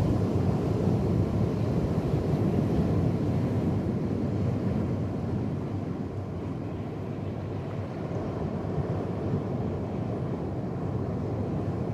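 Steady low rumble of moving water and surf, muffled through a camera held underwater in a rock pool; it eases a little about five seconds in.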